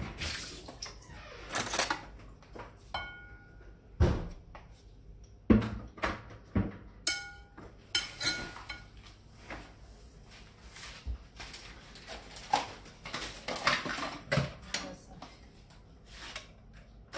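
Kitchenware being handled: a spatula scraping and knocking against a ceramic mixing bowl of cream cheese, with scattered sharp knocks and a couple of short ringing clinks of glass.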